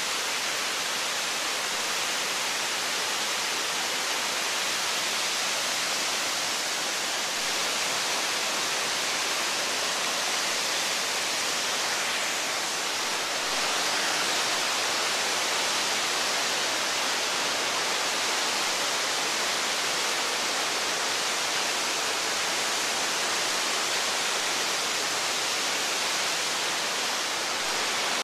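Waterfall: a steady rush of heavy water pouring over rock ledges into a gorge, becoming a little louder about halfway through.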